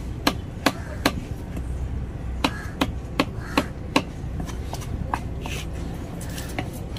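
Heavy cleaver chopping a tuna loin into chunks on a wooden chopping block: sharp knocks about two or three a second. There is a pause of about a second after the first three, and the knocks are lighter in the last three seconds.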